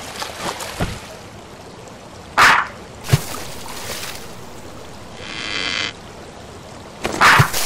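Cartoon water sound effects: two short, loud splashes, about two and a half and seven seconds in, a soft thud just after the first, and a brief pitched sound lasting about a second near the five-second mark.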